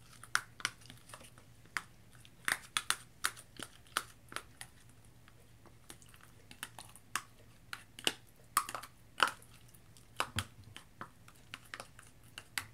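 Metal spoon stirring glue and liquid starch in a small plastic cup: irregular clicks and taps of the spoon against the cup as the slime mixture is mixed.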